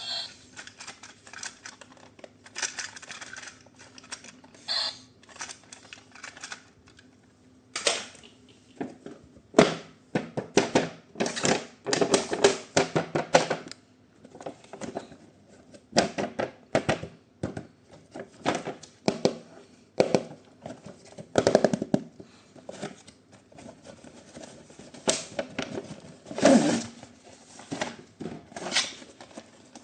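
Hands handling plastic toy parts and packaging: irregular clicks, knocks and light rattles, thickest in two spells in the middle.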